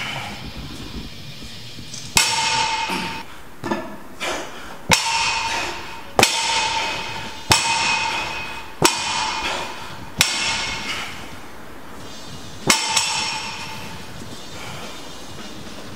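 Cast-iron plates on a loaded barbell clanking as the bar is worked through repetitions. About eight sharp metallic clangs come roughly one every second and a quarter, with a few lighter knocks between, and each clang leaves a short ringing tone. They stop a few seconds before the end.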